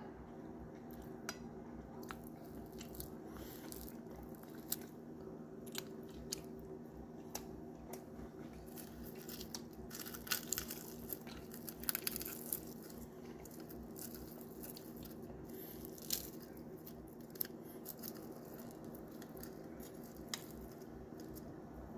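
Close-up eating sounds: chewing and crunching of pan-fried galunggong (round scad), with scattered crisp clicks and a denser run of crackles about ten to thirteen seconds in as the fried fish is pulled apart by hand. A steady low hum runs underneath.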